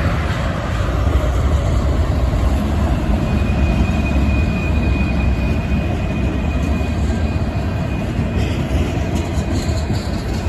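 Union Pacific freight train's cars rolling past with a steady rumble, and a thin, steady wheel squeal from about three seconds in to about eight seconds.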